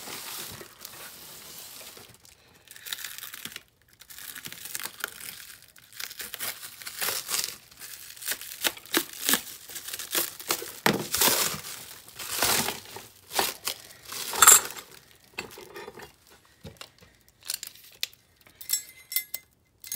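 Plastic stretch wrap being slit and torn off a bundle of aluminum bar stock, crinkling and crackling irregularly. Now and then there is a sharper knock of the metal pieces, the loudest about two-thirds of the way through.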